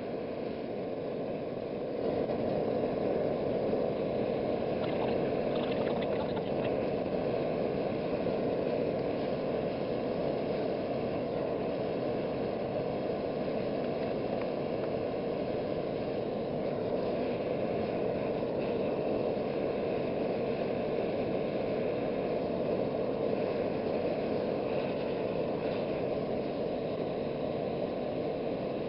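Steady rushing of a homemade forge running, air blown into the fire, getting a little louder about two seconds in.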